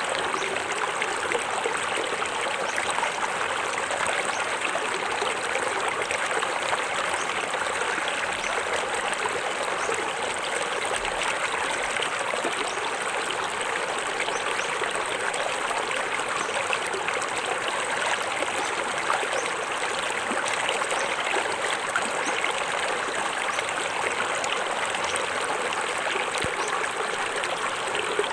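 Small forest waterfall splashing and flowing steadily over rocks into a stream, an even rushing with fine splashy detail.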